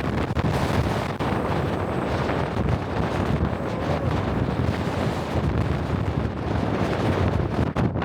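Strong gale-force wind buffeting the microphone: a continuous low rumble of wind noise.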